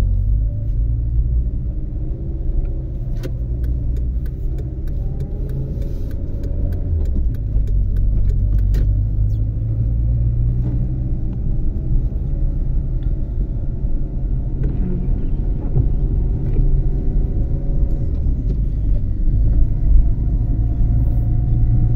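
Car heard from inside the cabin, driving on a wet road: a steady low engine and road rumble, the engine note sliding up and down in pitch as the car moves through traffic. A run of light clicks comes a few seconds in.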